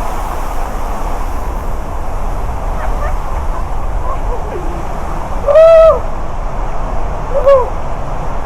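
Waterfall rushing with a loud, steady roar. A short hoot-like call rises and falls over it about two-thirds of the way in, and a shorter one follows near the end.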